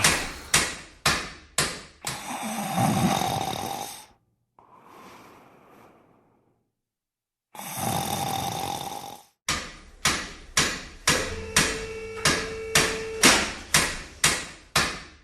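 Hammer blows knocking steadily, about two a second, broken in the middle by two long snore-like breaths.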